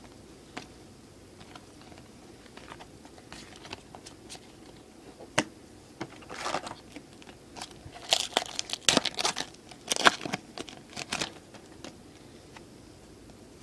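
A foil trading-card pack wrapper being crinkled and torn open, with the cards inside handled. Scattered light crackles at first, then denser bursts of crinkling from about six to eleven seconds in.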